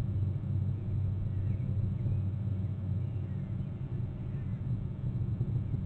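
Steady low rumble of outdoor shoreline ambience: surf and wind on the webcam microphone. A few faint high chirps come and go over it.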